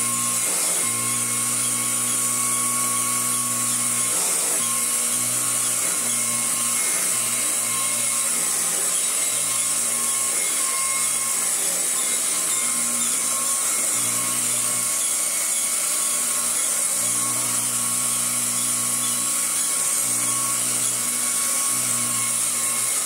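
1977 Royal 606 commercial upright vacuum cleaner running on a rug: a steady high whine over a lower hum that comes and goes.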